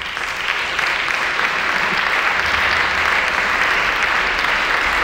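Audience applause in a concert hall, breaking out at once and holding steady.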